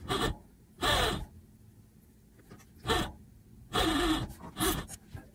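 Five short, breathy exhalations from a woman, spaced unevenly, with quiet between them.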